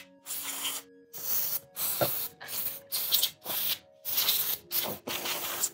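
Canned-air duster firing a rapid series of short hissing blasts, roughly two a second, blowing dust out of the guitar body's pickguard cavities.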